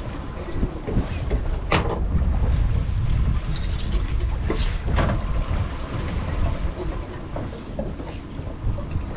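Low steady rumble of the boat's Mercury outboard motors running at trolling speed, mixed with wind on the microphone, with a few brief knocks and clicks scattered through it.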